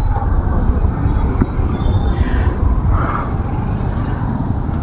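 Yamaha MT-15 motorcycle with its 155 cc single-cylinder engine on the move through traffic: a steady low rumble of riding and wind noise.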